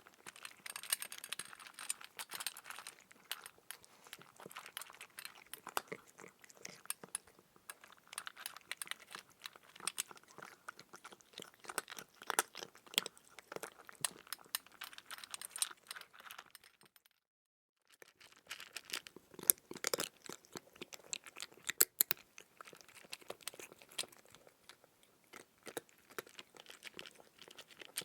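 Close crunching and chewing sound effect: dense, irregular crackling crunches, with a break of silence lasting about a second roughly two-thirds of the way through.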